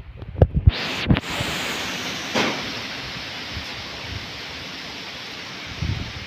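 Heavy wind: low buffeting thumps on the microphone in the first second, then a steady loud rushing hiss with one brief gust-like swell about two and a half seconds in.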